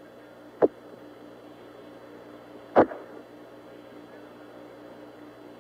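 Apollo 11 air-to-ground radio channel with no one talking: a steady hiss with a faint hum. Two short clicks break it, a small one just after the start and a louder one about three seconds in.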